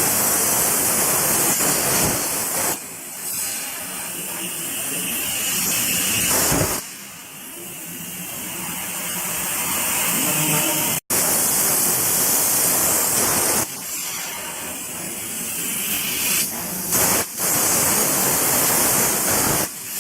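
100 A CNC plasma cutting torch cutting metal: a loud, steady hiss that falls to a softer level several times and builds back up, with a split-second break about eleven seconds in.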